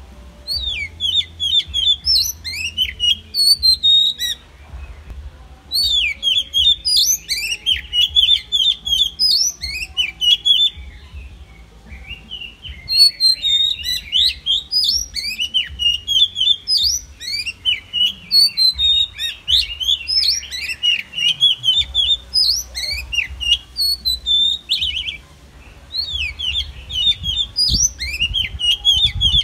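Male Oriental magpie-robin singing: long, varied phrases of rapid whistled and squeaky notes, broken by short pauses.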